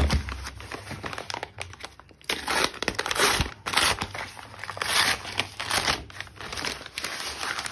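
Crinkling and rustling of a brown paper delivery bag as it is handled, crumpled and opened by hand, in uneven bursts, with a dull thump right at the start.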